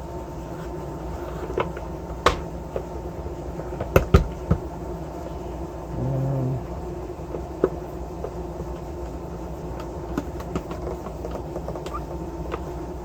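Scattered clicks and knocks of a soldering station's casing and parts being handled while it is taken apart, over a steady low hum, with a short low buzz about six seconds in.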